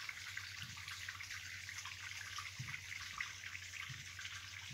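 Steady patter and trickle of water: a dense hiss of many small drops.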